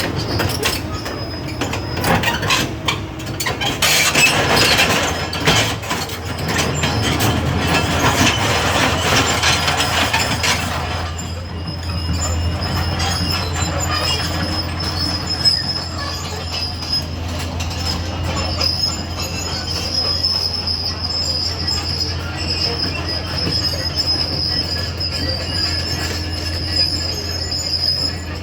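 Excavator in motion with its engine running steadily, a high metallic squeal and dense clanking of steel crawler tracks for about the first ten seconds, then a steadier grinding run with the squeal held.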